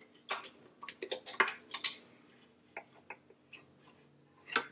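Brush scrubbing lint out of a serger's looper area: a run of short, irregular scratches and ticks against its metal and plastic parts, busiest in the first two seconds, with a sharper click about a second and a half in and another near the end.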